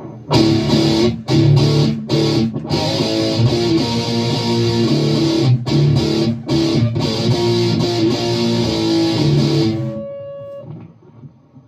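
Electric guitar played loud through an amplifier, chording and riffing with several sudden short stops. It cuts off about ten seconds in, leaving a few quieter notes ringing.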